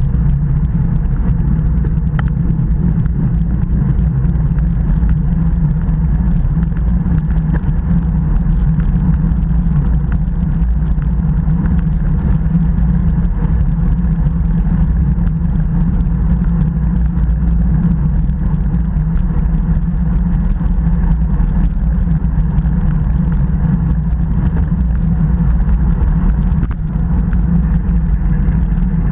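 Steady low wind rumble buffeting a Garmin VIRB action camera's microphone on a road bike ridden at about 40 km/h.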